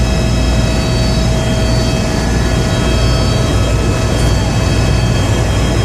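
Helicopter cabin noise in flight: a loud, steady low drone with several steady high whining tones over it.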